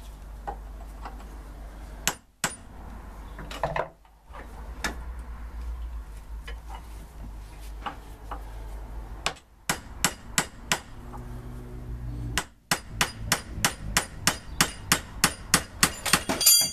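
A hammer strikes a steel drift punch to tap the pinion out of a Triumph Vitesse Mk2 manual steering rack's aluminium housing, clamped in a vise. First come scattered light taps, then a steady run of blows about three a second that grow louder near the end.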